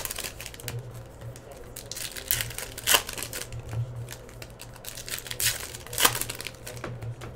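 Foil trading-card pack wrappers crinkling and tearing as the packs are torn open and the cards handled. It comes in irregular bursts, sharpest about three seconds and six seconds in.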